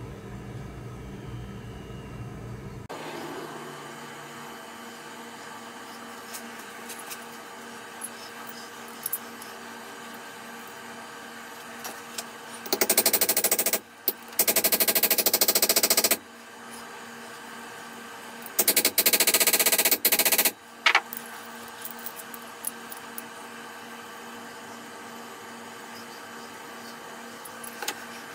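Hammer rapidly tapping a steel pin into a small cast-iron vise, in three quick runs of a second or two each about halfway through.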